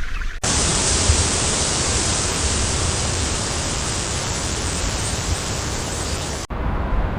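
Steady, loud rushing noise that starts abruptly and cuts off suddenly about six seconds in, giving way to a lower, rumbling noise.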